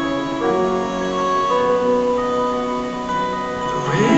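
Live rock band playing an instrumental passage: long held melodic notes over electric bass, with notes sliding upward near the end.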